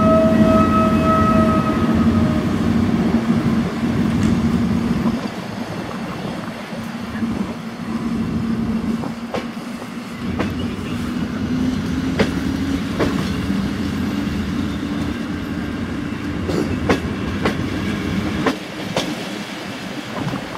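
EP07 electric locomotive and its passenger carriages pulling out and rolling past close by. A steady tone sounds over the first couple of seconds, and a low hum and rumble are strongest while the locomotive passes. Then the carriages roll by with irregular clicks of wheels over rail joints.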